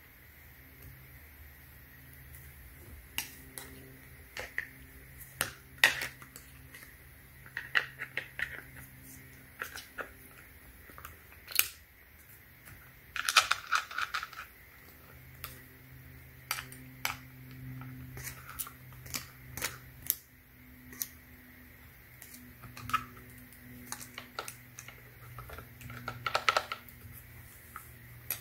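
Scattered clicks, knocks and rattles of a pole saw's chain, guide bar and plastic side cover being handled and fitted together by hand, with a denser rattle about halfway through. A faint steady low hum runs underneath.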